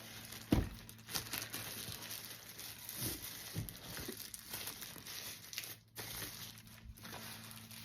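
Packaging crinkling and rustling as a boxed tablet is unwrapped from its protective wrapping, with a soft knock about half a second in.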